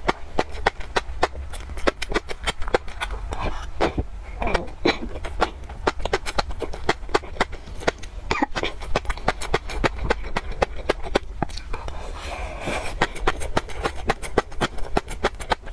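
Close-miked chewing of small beaded food: a dense, steady run of small crackles and pops, several a second, with wet mouth sounds between them.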